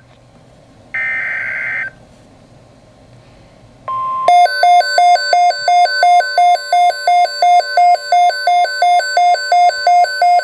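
Emergency Alert System broadcast opening: a one-second buzzy digital data burst (the SAME header) about a second in, then low hiss, a short steady beep, and from about four seconds a loud, harsh alert tone alternating between two pitches about three times a second.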